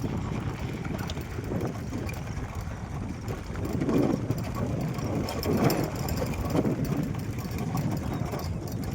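A vehicle engine running steadily during a ride, mixed with rumbling wind noise on the microphone.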